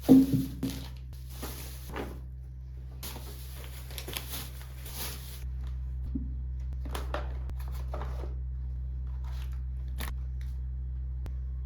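Household handling sounds: a knock, then rustling in several stretches and a few light clicks. A low steady hum comes on about halfway through.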